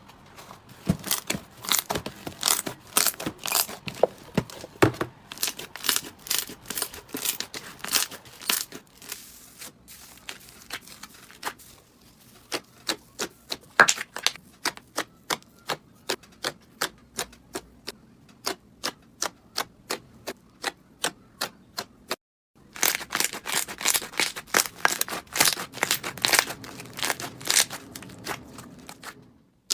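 Slime being squeezed and pressed by hand, giving a dense run of sharp crackles and pops. From about twelve seconds the pops come singly and evenly, about three a second, then after a brief pause near twenty-two seconds the dense crackling returns.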